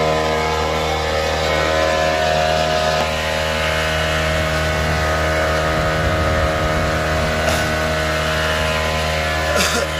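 Motor of a small canopied passenger boat running steadily at an even speed, a constant sound with several held tones. A brief noise sounds just before the end.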